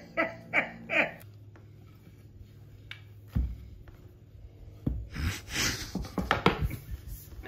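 Flat-pack furniture parts being handled: a dull knock of a laminated particleboard panel about three and a half seconds in, then a stretch of rustling and clattering of parts and packaging near the end, with brief voices at the start.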